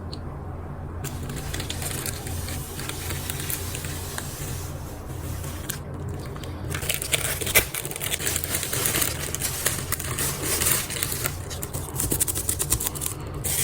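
Cardboard box and plastic packaging being opened and handled: scraping, rustling and tearing, with a steady low hum underneath. The handling becomes busier about halfway through, with many sharp clicks and crinkles.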